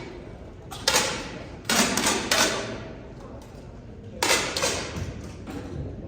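Air rifle shots from several shooters on a firing line, four or five sharp pops at uneven intervals, each with a short echo of the hall.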